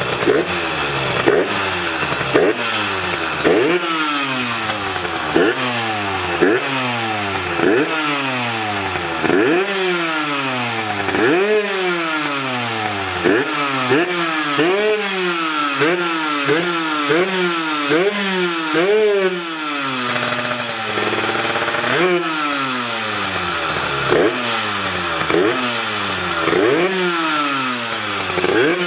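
Yamaha DT LC two-stroke engine with a 44 mm piston, revved in repeated sharp throttle blips through a new handmade exhaust; each rev jumps up and falls back. The blips come quicker, about two a second, around the middle, and settle briefly into a steady idle about two-thirds through before the revving resumes.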